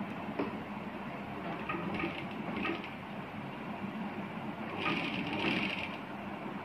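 Sewing machine in use: a steady low motor hum, with a few short clicks as the fabric is set under the presser foot and a brief louder run of stitching about five seconds in.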